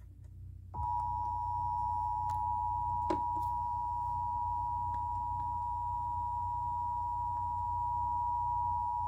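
Emergency Alert System two-tone attention signal: two steady tones, 853 and 960 Hz, sounding together. It starts about a second in and holds unchanged for about eight seconds, the alarm that opens a required monthly EAS test before the spoken test announcement.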